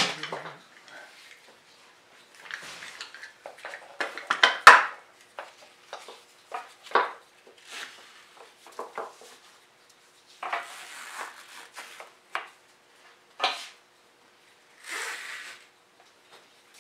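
Band clamp being fitted around a glued-up wooden box: scattered clicks and clatters of the clamp's hard parts and short rustles of the strap being pulled around. The loudest clatter comes about four and a half seconds in.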